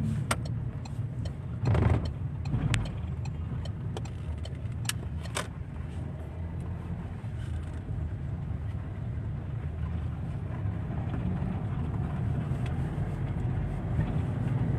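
Car driving, heard from inside the cabin: a steady low rumble of engine and road noise. A few sharp clicks come in the first six seconds, and a short rush of noise about two seconds in.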